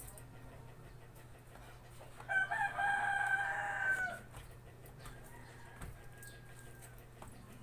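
A rooster crowing once, a single call of about two seconds that drops in pitch at the end.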